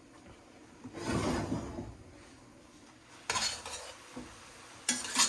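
Cooking pots handled on a stovetop: a longer scraping clatter about a second in, then two shorter metal clanks later on.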